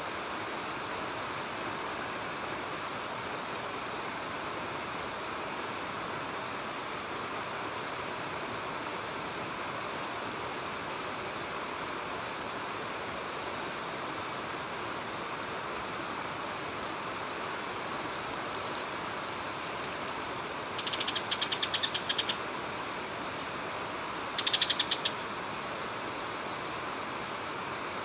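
Steady rush of river water pouring over a weir, with a constant high insect drone over it. Twice, about two-thirds of the way in and again a few seconds later, a short rapid high trill cuts in, the loudest sound.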